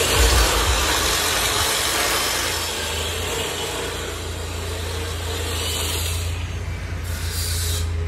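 Diesel tractor engine running with a steady low drone that grows clearer after a couple of seconds, under a broad hiss that is strongest at the start.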